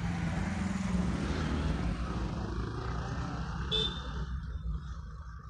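Steady low rumble of road traffic, with a brief high beep about four seconds in.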